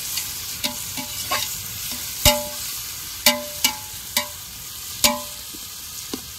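Tomatoes frying in hot oil in a metal pot with a steady sizzle, while a metal ladle stirs them and clanks against the pot about ten times, each strike leaving a short ringing note.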